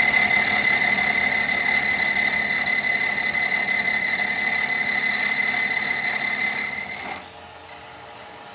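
A power tool working metal, running steadily with a high whine; the sound drops to a much quieter level about seven seconds in.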